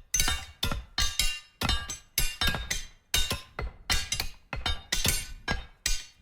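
Metal objects struck one after another in an irregular series, about two to three hits a second, each hit ringing briefly with a clanging, bell-like tone.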